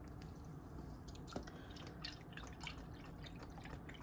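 Faint drips of chicken broth falling into a container just after pouring, with a few small scattered ticks.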